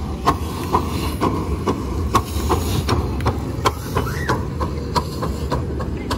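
Miniature steam train running past close by: a steady low rumble with sharp clicks about twice a second.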